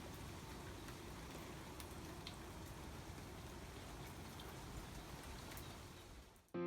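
Steady rain falling, a faint even hiss with a few drops ticking now and then, fading out just before the end.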